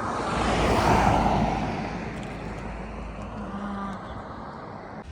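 A car passing by: its engine and tyre noise swells to a peak about a second in, then fades away.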